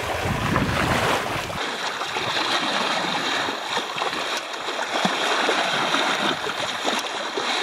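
Seawater rushing and splashing around a person being towed through the sea in a harness from a moving sailboat's halyard. About a second and a half in, the sound changes to a closer, hissier rush with small splashy ticks.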